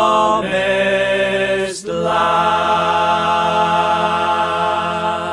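Closing bars of a song: long held sung notes in a choir-like chant, with a brief break just under two seconds in, then one long final chord that fades out.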